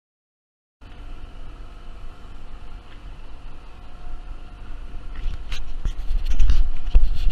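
Silence, then about a second in a boat engine comes in, running steadily as the yacht motors along, with water wash under the stern. It grows louder, and wind buffets the microphone in the last couple of seconds.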